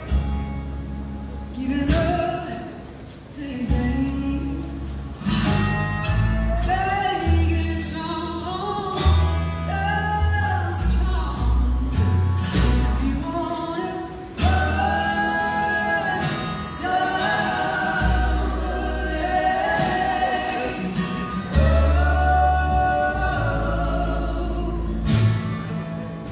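Live acoustic band music: sung lead vocals with harmony voices over acoustic guitar strumming and sustained upright double bass notes.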